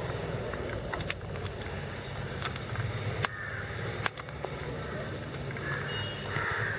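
Steady low background hum with a few sharp clicks, about a second in and again around three and four seconds in.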